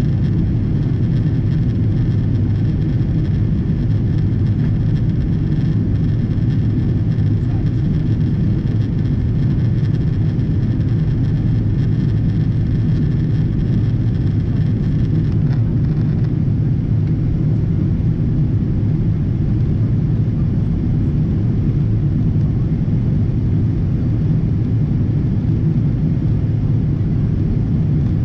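Cabin noise inside a Boeing 777-200ER heard from a window seat: the steady low rumble of its Rolls-Royce Trent 892 engines and the air outside. A faint high whine in the mix fades out about halfway through.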